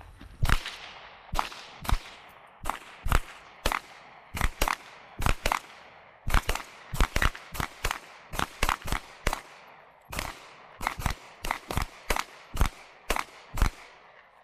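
Pistols firing in quick, uneven, overlapping strings from more than one shooter, about thirty sharp shots in all, each trailing off in a short echo. The shooting starts about half a second in and stops just before the end.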